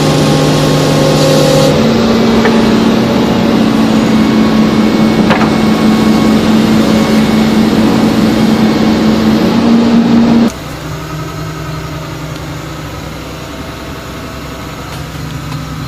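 RaMeC pile-driving attachment and its machine running with a steady loud drone while clamped to a steel pile; the pitch shifts about two seconds in. About ten seconds in it drops abruptly to a quieter steady hum.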